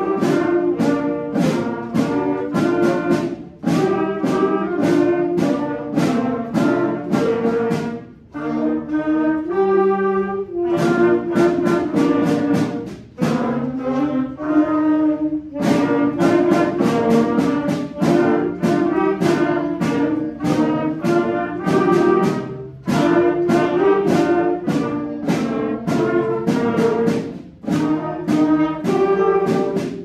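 School concert band playing a rhythmic piece, with the brass section, trombones among it, prominent over the ensemble. Short accented notes on a steady beat, thinning twice to a few softer held notes before the full band comes back in.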